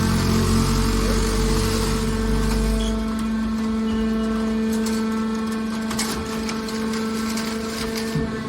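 Hydraulic aluminium can baler running with a steady machine hum. A heavy low rumble drops away about three seconds in, and scattered sharp clicks and clanks follow a little later.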